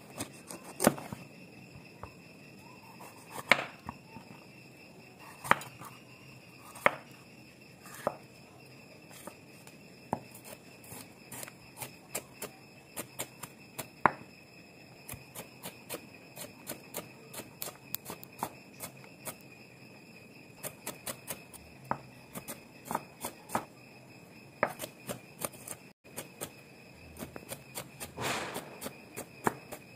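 Large chef's knife cutting a yellow bell pepper on a wooden cutting board. At first come a few separate, sharp knocks of the blade on the board, a second or two apart; from about halfway the pepper is diced, with quicker chopping strokes of several a second.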